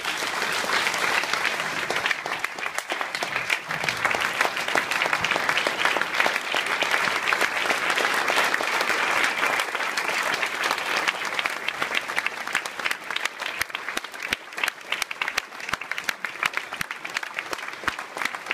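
Audience applauding, a dense, sustained clapping of many hands that thins slightly toward the end.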